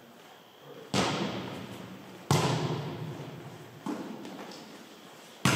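A volleyball being hit during a rally: four sharp slaps about a second and a half apart, the second the loudest, each ringing on in the echo of a large gym hall.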